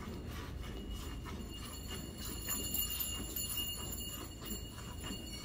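Milk squirting into a steel bucket in a quick, steady rhythm as a Gir cow is milked by hand.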